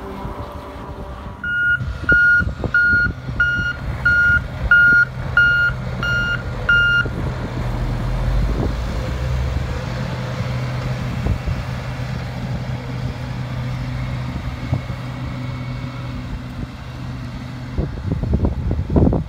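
A wheel loader's backup alarm beeps about one and a half times a second for several seconds, then stops. The loader's diesel engine then runs with a steady low hum, and a few knocks come near the end.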